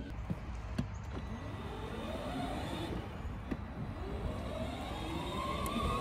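Side-by-side utility vehicle's engine running, its pitch climbing steadily as it speeds up, with a few faint knocks.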